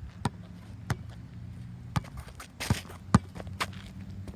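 Basketball bouncing on a hard court in an uneven dribble, about six sharp bounces, the loudest about three seconds in. A brief noisy scrape comes just before it, over a low steady hum.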